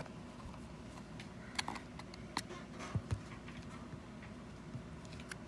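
Faint, scattered clicks and taps of an eyeshadow palette's cardboard and plastic packaging being handled while it is pried open.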